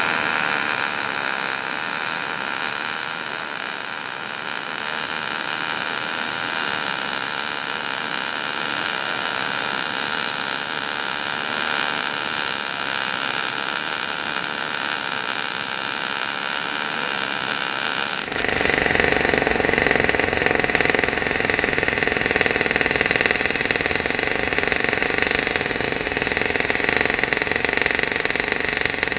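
MIG (GMAW) welding arc from a Millermatic 252 running in short-circuit transfer at low settings, 230 in/min wire feed and 17.4 V: a steady, dense, noisy buzz. About 18 seconds in it abruptly turns duller and lower.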